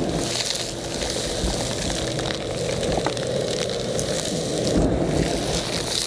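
Ridgid WD19560 shop vacuum running steadily, its hose and wand sucking loose dirt out of the bottom of a post hole, with scattered clicks of grit going up the hose.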